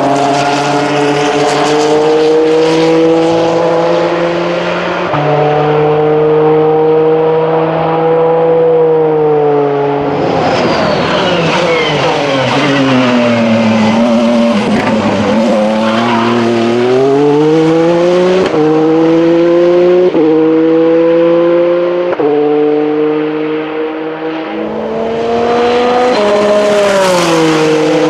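Formula 2 race car engines running at speed, their notes stepping in pitch at gear changes. Around the middle a car's engine note sweeps down and back up as it passes close.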